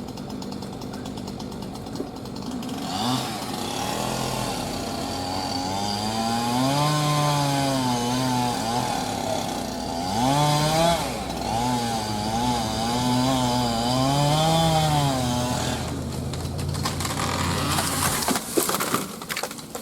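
Chainsaw making the felling cut through a tree trunk, its engine pitch dipping and climbing back again and again as the chain loads up in the wood. A few sharp cracks come near the end as the tree goes over.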